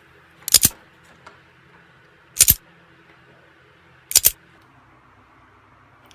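Foam darts being pushed one at a time into the toy blaster's plastic magazine, each with a sharp double click, three times.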